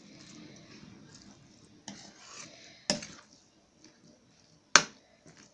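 Metal spoon stirring curd rice and milk in a plate: soft stirring at first, then the spoon clinks against the plate three times, the last clink near the end the loudest.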